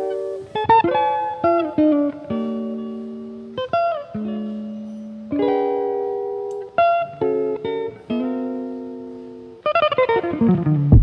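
Background music: slow plucked chords, each struck and left to ring out and fade before the next.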